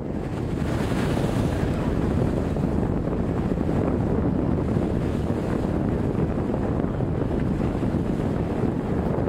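Steady wind rumble buffeting the microphone at the bow of a moving boat, over the rush of water along the hull. It fades in over the first moment.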